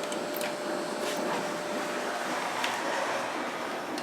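Otis passenger elevator car travelling down: a steady rushing hum inside the cab, with a few faint ticks.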